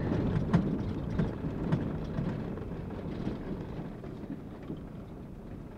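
Low rumble and rattle of a Fiat Fiorino van rolling slowly over an unpaved road of washboard ruts, loose stone and sand, heard from inside the cab, with scattered small knocks. It grows gradually quieter.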